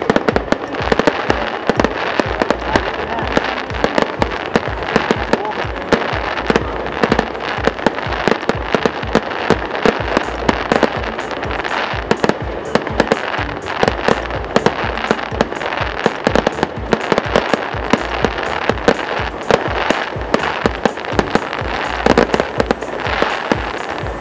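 Fireworks display going off in quick succession: a dense run of sharp bangs and crackles, several a second, that starts abruptly and keeps going without a break.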